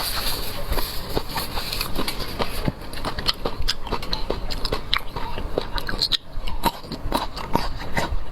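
Close-miked biting and chewing of seafood, with many small, irregular clicks and crackles.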